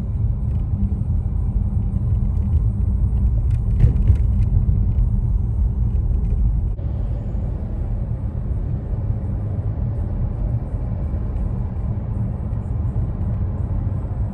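Steady low road rumble heard inside a moving car's cabin: tyre and engine noise while driving. A few light clicks come about four seconds in, and the sound shifts abruptly about seven seconds in.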